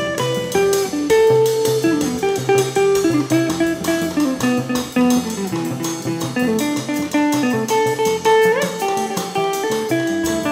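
Band music with a guitar playing a lead melody of short single notes over the band; one note is bent upward about eight and a half seconds in.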